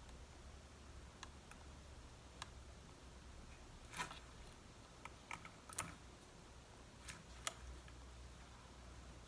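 Scattered small clicks and taps, about eight at uneven intervals, from hand tools and parts being handled on an opened MacBook Pro during reassembly.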